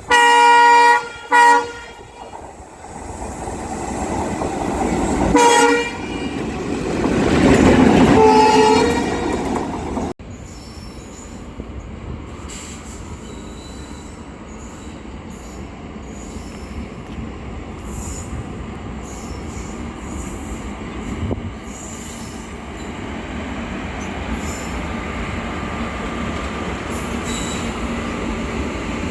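Locomotive horn sounding in short blasts: two right at the start, then more about five and eight seconds in, over the rising rumble of a train drawing close and passing. After an abrupt break, the steady rumble and clatter of train wagons rolling along the track.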